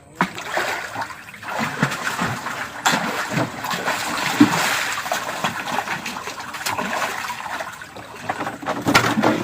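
Irregular splashing of water as a hooked toman (giant snakehead) thrashes at the surface.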